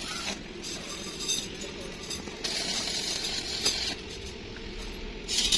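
Stick (arc) welding crackling and hissing as rebar is tack-welded into a small cage. It comes in several bursts with short breaks between them, and the loudest burst falls near the end.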